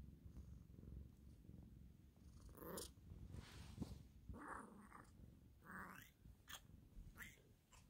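Domestic cat purring steadily close to the microphone, with a few brief louder noises in the middle and some light clicks near the end.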